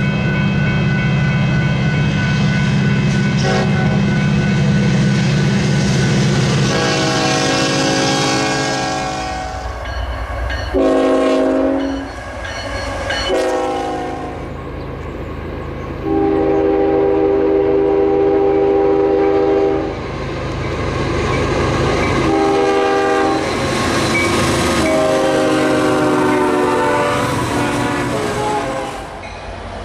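Nathan K5 five-chime air horns on diesel freight locomotives sounding a series of long and short blasts. A loud, deep diesel engine drone fills the opening seconds, and wheels clack on the rails beneath.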